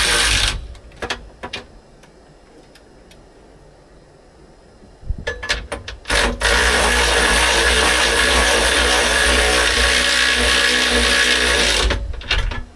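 Power tool with a socket running nuts down onto the swivel seat base bolts: it stops about half a second in, a few clicks follow, then after a couple of short bursts it runs steadily for about five and a half seconds before stopping.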